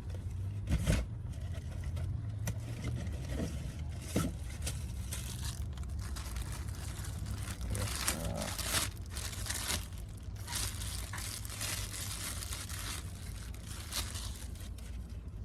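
Packaging being handled and torn open, with irregular rustling, crinkling and scraping, over a steady low hum.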